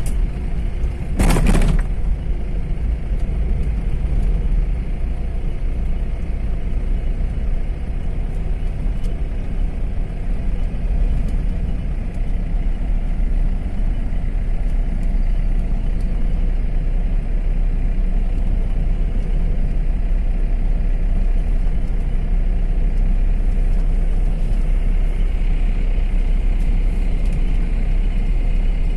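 Steady low engine and tyre rumble of a car driving along a paved road, heard from inside the cabin. A brief loud clatter comes about a second and a half in.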